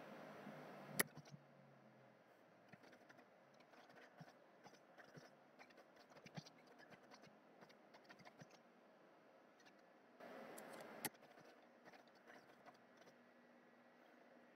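Faint computer keyboard typing: a run of soft, uneven key clicks. Two sharper clicks stand out, about a second in and near eleven seconds, each ending a short stretch of hiss.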